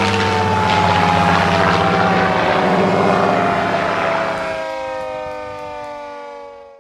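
Restored air raid siren winding down, its wail falling slowly in pitch and fading out. A rushing noise and low hum under it stop about four and a half seconds in, leaving the falling tones alone.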